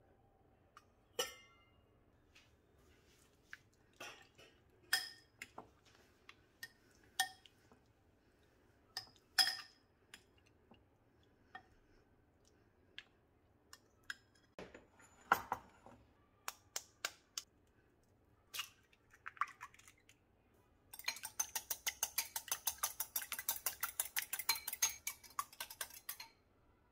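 Scattered clinks and taps of a spoon and utensils against a glass mixing bowl and steel lid, each one separate. Near the end comes about five seconds of fast beating, several strokes a second, as a fork whisks egg against the side of a glass bowl.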